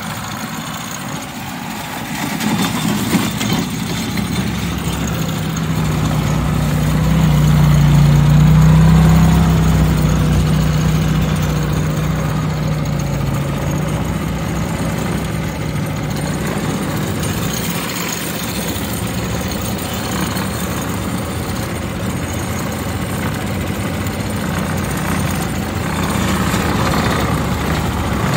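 Small engine of a motorized rail cart running steadily as the cart rolls along the track, with the rush of wheel and rail noise over it. The engine grows louder for a few seconds about a quarter of the way in, then settles back.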